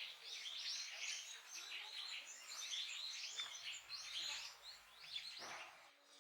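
A songbird singing a fast, continuous run of varied high chirps and whistles, which breaks off about a second before the end.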